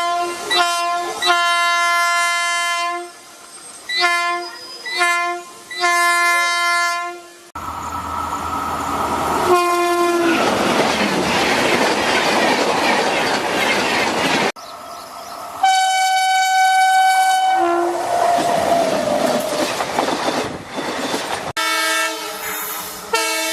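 Indian Railways locomotive horns in a run of short clips: a string of short and long blasts at first, then a blast followed by the rushing clatter of a passing train, then a long steady blast and a tone that slides down in pitch. Near the end comes a horn sounding several notes at once.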